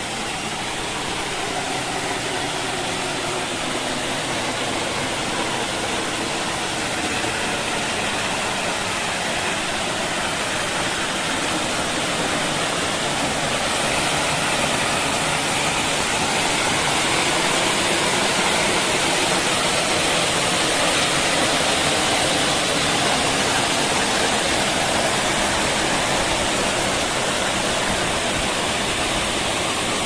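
Waterfall pouring off a rock overhang and splashing onto the rocks below: a steady, full rush of falling water that grows a little louder about halfway through.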